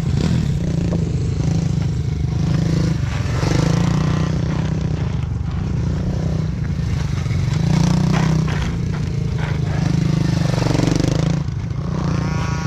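A 125 cc four-stroke pit bike's engine running under load. Its note swells and falls every few seconds as the throttle is opened and closed through the corners.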